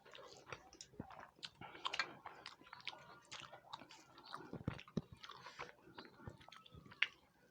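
People chewing food up close: quiet, irregular mouth clicks and small crunches.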